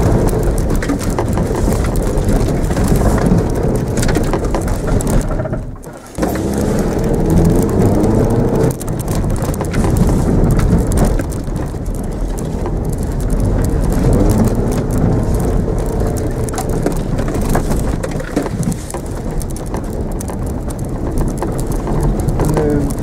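Mitsubishi Mirage engine revving up and easing off as the car is thrown around a grass course, heard from inside the cabin. Under it is a constant crackling rush of tyres and grit on the car. The noise drops sharply for about half a second around six seconds in.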